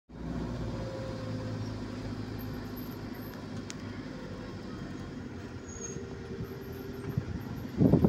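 A vehicle driving along a road: steady low engine and road noise. A sudden, much louder sound cuts in right at the end.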